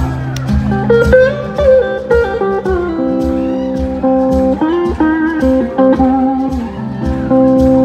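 Live blues-rock band playing: electric guitars, one playing gliding slide-guitar lines, over drums and bass.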